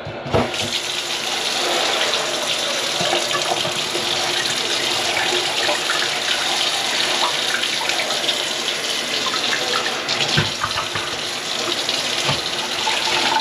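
Kitchen faucet turned on and running steadily into a stainless steel sink, splashing onto the drain that was plugged with grease, with a few light knocks in the basin.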